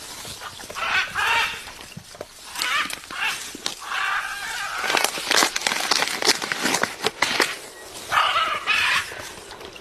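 Parrot giving several harsh squawks, each under a second long, with a run of quick sharp clicks in the middle.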